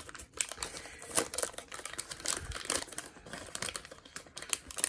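A baseball card pack being opened and its cards handled: the wrapper crinkles and the cardboard cards give a quick run of clicks and snaps.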